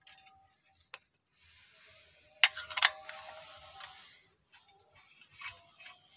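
Metal tool clicks and two sharp metallic clinks, the second about half a second after the first, with a brief ring after them, as the clutch cover (pressure plate) bolts are worked loose with a socket. It is a step in taking out a clutch whose worn-out disc had been slipping.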